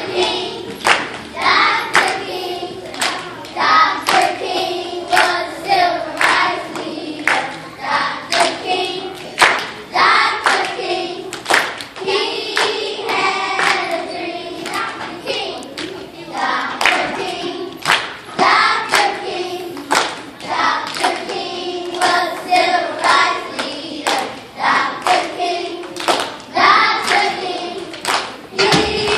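A children's choir of first graders singing together, clapping their hands along in a steady beat.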